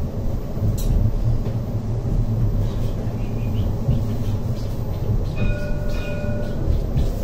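CAF Urbos 3 tram running along street track, heard from inside the car as a steady low rumble. There is a short click about a second in, and a held tone lasting about a second and a half a little past halfway.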